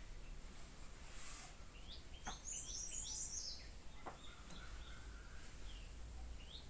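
Small birds chirping over a faint steady background hiss, with a quick run of short rising chirps about two to three seconds in and another few near the end.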